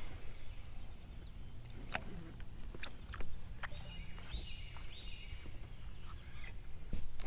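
Spinning reel being cranked on a lure retrieve, with light scattered clicks, over steady low outdoor background noise and a faint steady high-pitched tone.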